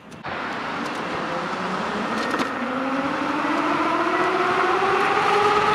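A 72 V 12 kW electric-bike hub motor whining under hard acceleration, its whine climbing steadily in pitch as speed builds. Rushing wind noise grows louder with it.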